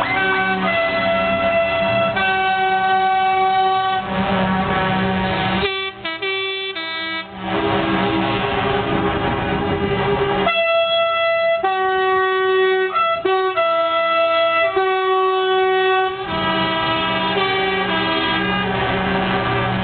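Multi-tone truck air horns sounding in long held blasts that change pitch every second or two, with a quick run of short notes like a horn tune partway through, over the low running of truck engines.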